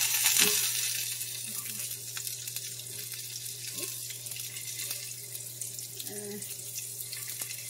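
Carrot sticks sizzling in hot oil in a cast-iron skillet: a burst of sizzle as the carrots go into the pan, settling to a steady sizzle.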